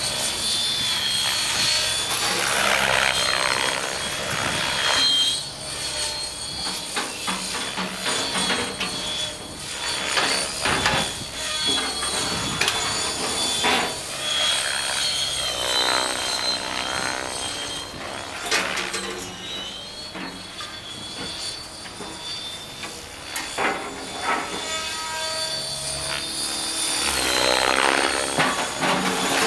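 Electric Rave ENV RC helicopter flying on YB-710 flybarless rotor blades: a steady high-pitched motor whine, with rotor-blade whooshing that rises and falls in pitch several times as the helicopter swoops and turns.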